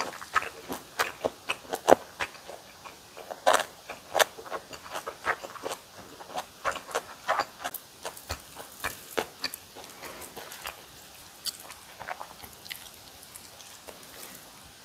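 Close-miked chewing of kimchi and boiled pork: a quick run of crisp, wet crunches and mouth clicks that thins out over the last few seconds.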